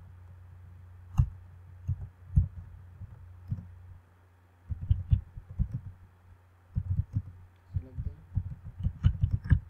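Computer keyboard typing: a few single keystrokes, then quick bursts of keys from about halfway through. A low steady hum runs underneath for the first few seconds and then stops.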